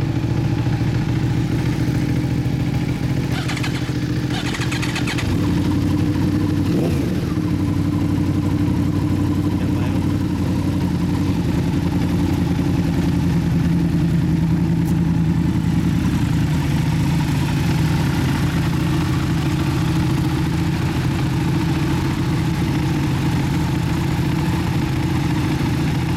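Yamaha YZF-R1 inline-four with an Akrapovic exhaust idling steadily, the idle note settling slightly about five seconds in.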